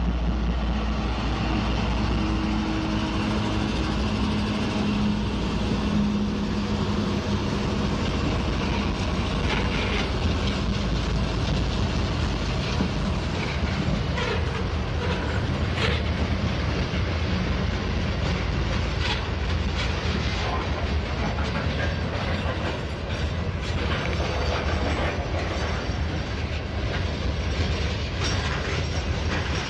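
Freight train rolling past close by: a GE ET44AC diesel locomotive's engine hums steadily for the first few seconds, then covered hopper cars rumble by with wheels clicking over rail joints.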